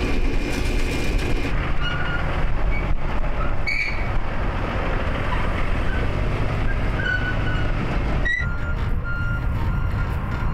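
A semi truck backing up: its diesel engine running with a steady low rumble while its reversing alarm beeps, settling into an even beat in the last few seconds.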